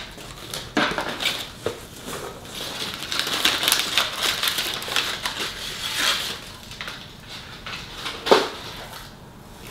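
A cardboard shipping box being opened and its contents rummaged: irregular rustling and crinkling of packing material with scattered knocks, densest in the middle, and one sharp knock about eight seconds in.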